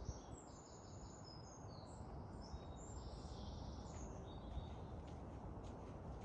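Small birds chirping and singing in short, high-pitched phrases, fading out after about four seconds, over a steady low rumble of wind on the microphone.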